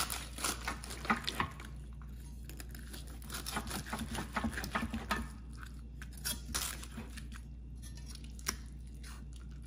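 Large carving knife slicing through a roast turkey's crisp skin and breast meat, crackling and scraping in several spells of strokes, with the odd click of the knife and fork.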